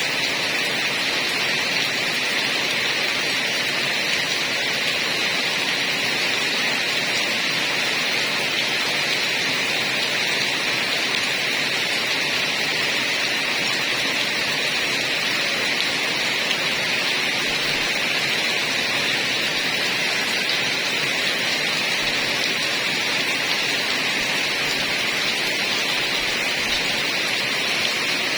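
Heavy rain falling steadily, an even unbroken hiss that stays at the same level throughout.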